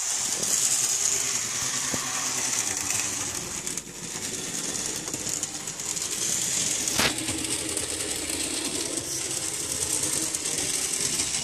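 Motorised diecast N gauge model trams running along the track, a steady small-motor whirr with a sharp click about seven seconds in.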